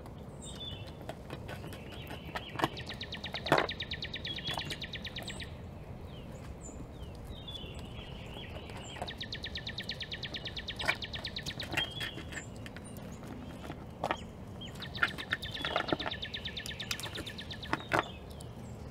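A songbird singing a rapid, even trill about three seconds long, preceded by a short call note, repeated three times. A few sharp clicks or knocks are scattered through it, the loudest about three and a half seconds in.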